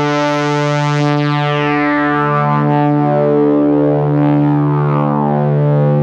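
Waldorf Microwave 1 wavetable synthesizer holding one low note on its 'Precious Bass' patch. The bright upper harmonics fade away over the first few seconds while the timbre keeps slowly shifting.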